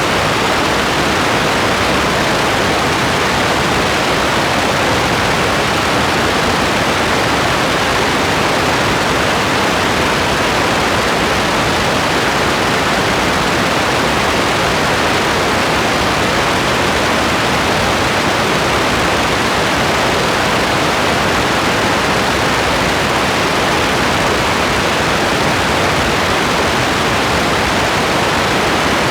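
Rain falling in a steady, even hiss, with no single drops, thunder or other sounds standing out.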